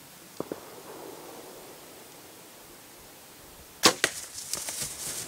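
Bow shot at a whitetail buck: a sudden sharp crack of the bowstring and the arrow hitting, about four seconds in. It is followed by a scatter of thumps and rustling as the deer bolts through the grass. Two faint ticks come near the start.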